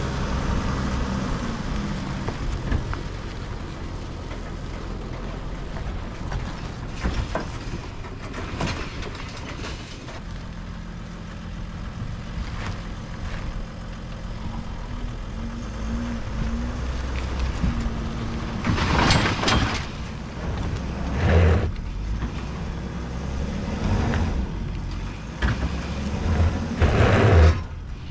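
Mercedes-Benz Sprinter 4x4 van's engine running steadily under load as it climbs a dirt trail pulling a loaded trailer, with a few short, louder bursts of rushing noise about two-thirds of the way through and again near the end.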